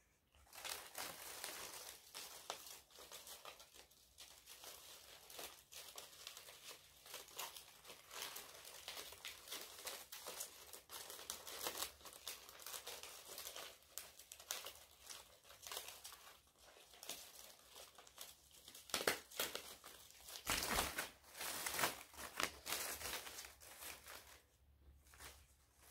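Stapled white paper strips of a 3D paper snowflake being handled, rustling and crinkling irregularly, with a few louder rustles and bumps near the end.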